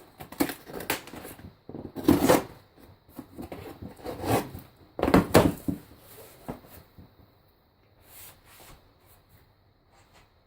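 Cardboard box and packaging being handled and opened: irregular rustling, scraping and knocks, with the loudest bumps about two and five seconds in, then quieter scattered handling.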